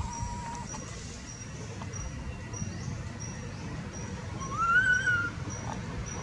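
Animal calls in trees: a short high note repeating about twice a second, and about four and a half seconds in a single rising-then-falling whistled call, the loudest sound, over a low steady rumble.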